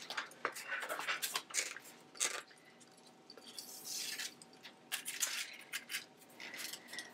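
Flat rattan reed lashing being worked around a basket rim: irregular soft scrapes, rustles and small ticks, with a longer rasping pull of the reed through the weave about four seconds in.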